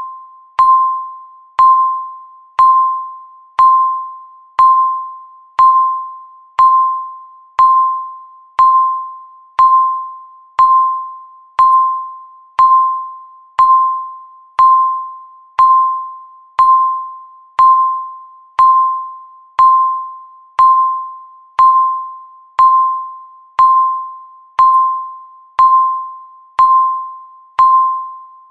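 Countdown timer beeping once a second, each beep a single bell-like electronic tone that starts sharply and fades away before the next.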